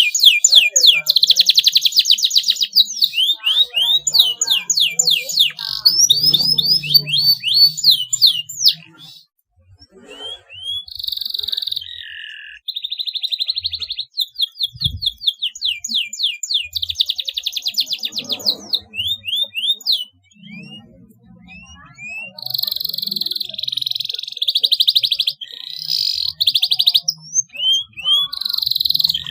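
Domestic canary singing long, high-pitched phrases of fast trills and rapidly repeated sweeping notes, with brief pauses about a third and two thirds of the way through.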